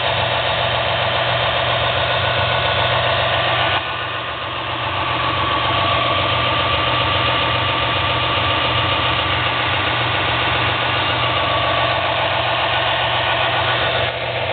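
Rockford combination belt and disc sander running unloaded, its electric motor humming steadily with the belt and disc spinning, and a brief dip in level about four seconds in. The machine runs smoothly.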